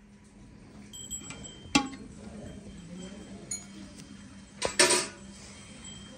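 Stainless steel milk pail clinking and knocking as it is handled and set down on the ground under a cow's udder, ready for hand milking. There are several sharp metallic knocks with a brief ring, the loudest about two seconds in and again near five seconds in.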